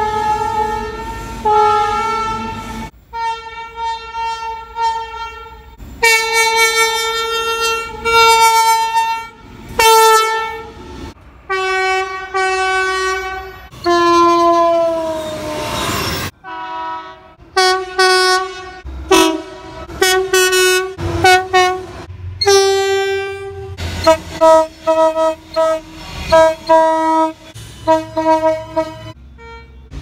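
Train horns sounding in a run of clips: long held blasts in the first half, one horn falling in pitch as the train passes about halfway through, then a rapid series of short toots in the second half.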